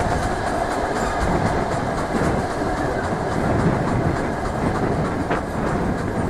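A DR1A diesel multiple unit running along the track, heard through an open carriage window: a steady rumble of wheels on the rails mixed with rushing air.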